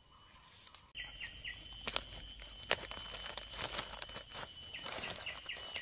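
Footsteps and rustling in forest leaf litter, with a bird chirping in quick groups of three and a steady high insect drone, all coming in abruptly about a second in after near quiet.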